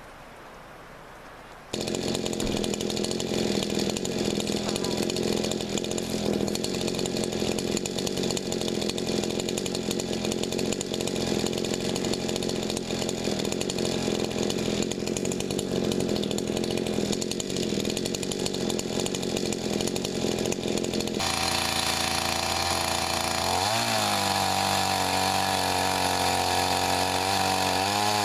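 Gas chainsaw starting up abruptly and running steadily, cutting pecan wood. About 21 seconds in its note changes, and near the end its pitch dips and recovers a few times as it works.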